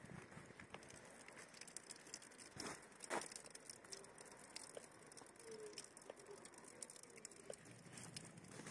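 Near silence: faint outdoor room tone with scattered small clicks and two brief soft rustles about three seconds in.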